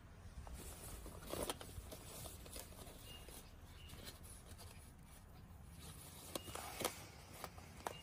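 Paper and card hang tags and the glossy nylon shell of a puffer jacket rustling and crinkling as they are handled, in soft scattered rustles and light clicks, a few sharper ones near the end.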